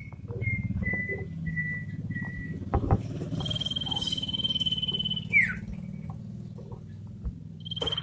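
Male iora whistling: a row of five short, even whistled notes, then a longer, higher level whistle that ends in a quick falling note. A low rustling runs underneath, with a few clicks.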